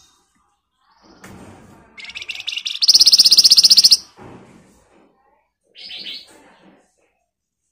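Caged Flamboyan songbird singing a loud, very rapid rattling trill, starting about two seconds in and lasting about two seconds, then a brief, softer trill about six seconds in.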